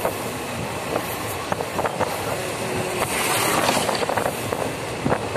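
Moving passenger train heard from inside the carriage at an open window: a steady running rumble with irregular clicks from the wheels. About three seconds in a louder rushing hiss lasts for roughly a second.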